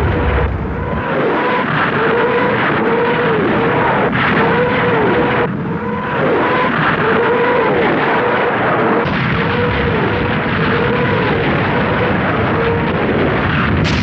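Katyusha rocket launcher salvo firing: a continuous dense roar of launching rockets, with a howl that rises and falls over and over, about once a second.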